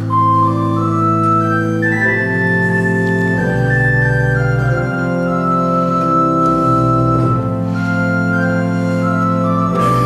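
Church organ playing slow held chords, its top melody line stepping gradually downward. It is the introduction to a sung psalm refrain.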